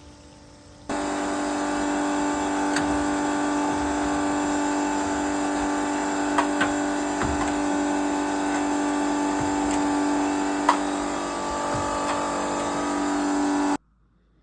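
A machine running steadily with a strong, even hum and a few light clicks. It starts abruptly about a second in and cuts off abruptly near the end.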